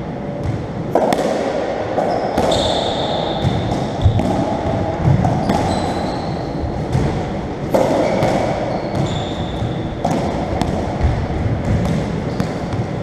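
A racketball rally: irregular sharp knocks as the ball is struck by the rackets and smacks off the court walls and floor, with short high squeaks of shoes on the wooden floor in between.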